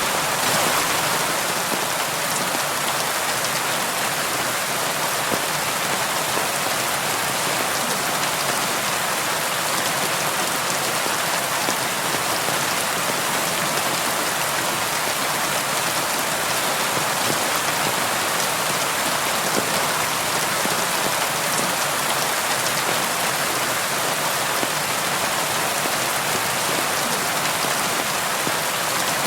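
Steady rain falling, with fine drop ticks in an even hiss of rain.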